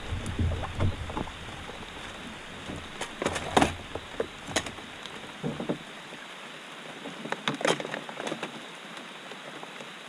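Rain falling steadily, an even hiss, with scattered irregular knocks and taps.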